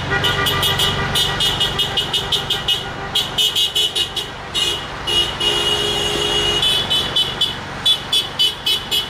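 Car horns honking from a passing line of cars: many rapid short toots, with one longer held horn note about halfway through, over the low rumble of traffic.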